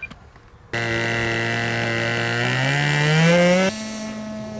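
RC model airplane motor and propeller at high power, starting abruptly about a second in and rising steadily in pitch. It cuts off sharply near the end and gives way to a quieter, steady motor note.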